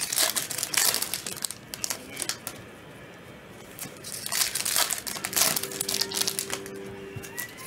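Trading card pack wrappers crinkling as packs are opened and cards handled, in two spells of rustling with a short pause between.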